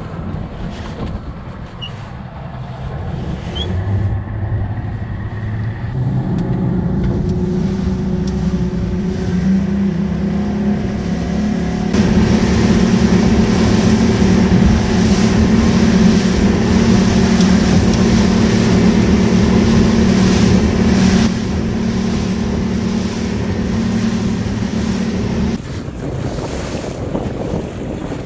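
Motorboat engine throttling up over several seconds, its pitch climbing, then running steadily at speed before easing back in two steps near the end, with wind and water rushing past.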